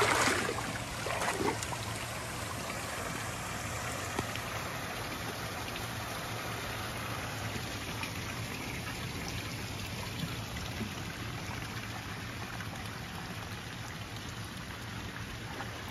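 Steady splash and trickle of water from the pool's fountain spouts pouring into the water, louder for the first second or so.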